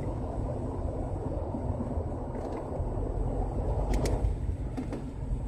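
Car interior noise as the car moves slowly along a flooded road: a steady low rumble of engine and tyres through standing water. A couple of sharp clicks about four seconds in.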